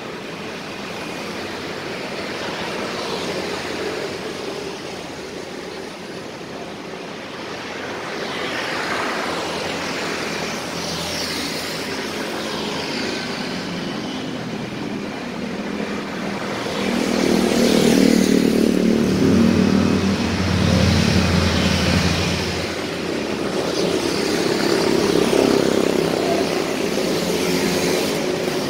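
Street traffic: cars and motorcycles pass one after another, engines and tyre noise swelling and fading. About two-thirds of the way through, a louder, deeper engine passes.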